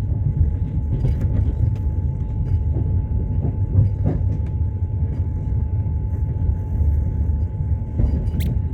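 Passenger train running on the rails, heard from inside the carriage: a steady low rumble with scattered clicks and knocks from the wheels, and a brief high squeal near the end.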